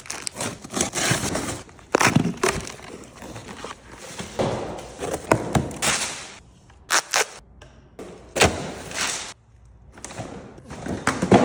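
Boxes and packaging being opened and handled: irregular rustling, crackling bursts with sharp knocks and thuds.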